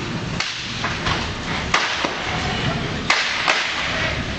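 Sharp cracks and knocks, a second or so apart, the strongest about two-thirds of the way in, over a steady rushing noise.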